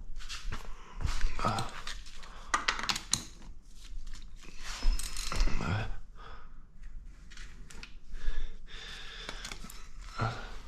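Scattered clicks, taps and rustling of hands working on a Honda TRX400EX engine's parts, over a steady low hum.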